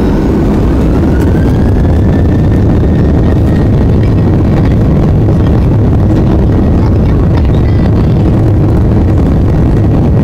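Boeing 737-800's CFM56-7B turbofan engines spooling up for the takeoff roll, heard from inside the cabin: a whine rises over the first two seconds or so and then holds steady over a loud, steady low rumble.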